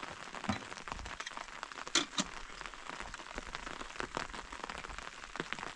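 Heavy rain falling, a dense, irregular run of drops tapping on a hard surface, with one sharper tap about two seconds in.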